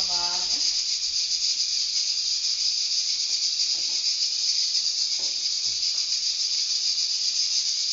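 Cubes of toucinho (pork fat) sizzling in an aluminium frying pan: a steady, high hiss of frying fat with no break.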